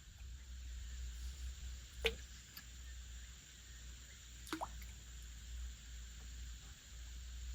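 Two water drops plopping into water, about two seconds in and again about halfway through, each a short pitched plink.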